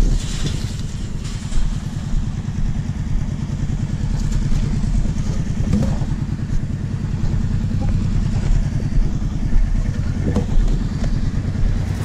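Quad (ATV) engine running at low revs with an even pulsing throb, with a few brief knocks and rattles over it.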